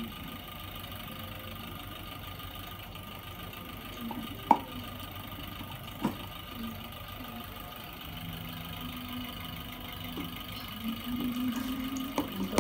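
Steady background hum with two sharp knocks about a second and a half apart, a spoon striking a bowl as slime ingredients are spooned out.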